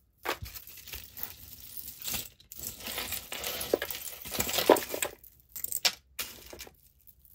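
Metal chains and beads of costume jewelry clinking and rattling as pieces are picked out of a tangled pile by hand, busy for about five seconds, then a few lighter clinks.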